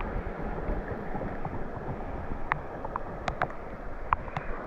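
Steady rushing noise of wind and running water, with a few light, sharp ticks scattered through the second half.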